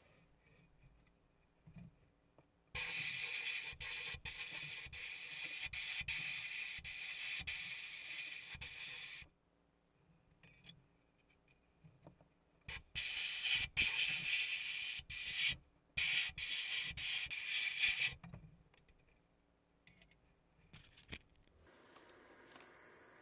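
Abrasive blast gun in a sandblasting cabinet hissing as it strips rust and paint from a tin toy boat's hull. It blasts for about six seconds, stops, then blasts again for about five seconds with several brief cut-offs.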